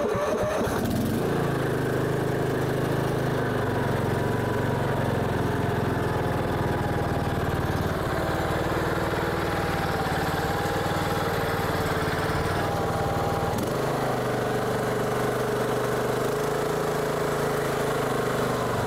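Yardworks 439cc OHV lawn tractor engine, just started, running steadily without surging. The fault that made it surge and die was cured by clearing dirt from the carburetor and fitting a new fuel filter.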